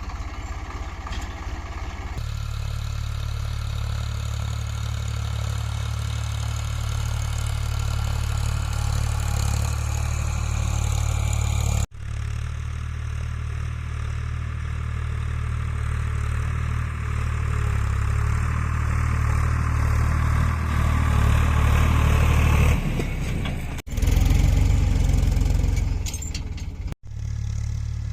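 Eicher 557 tractor's diesel engine running under load while ploughing, a steady low drone. It breaks off abruptly three times and comes back, slightly louder near the end.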